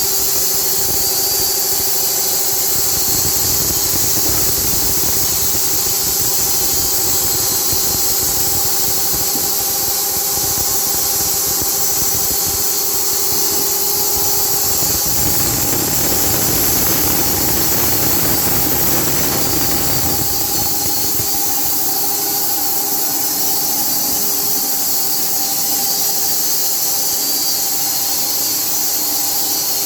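Carpathian SMFA 1000 horizontal band sawmill running loud and steady, a high whine over a hiss. About halfway through, its tones shift.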